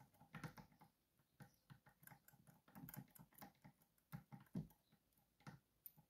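Faint, irregular metallic clicking and rattling as magnetic picks are jiggled against a Miwa magnetic cam lock under tension, moving the magnetic sliders inside toward their set positions. A few clicks are louder near the end.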